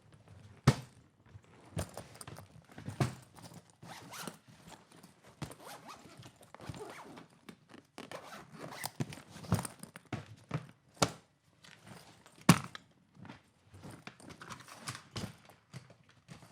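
A suitcase being handled: a string of irregular clicks and knocks from its clip buttons and shell, with rustling and zipper-like scraping between them. The sharpest knock comes a little past twelve seconds in.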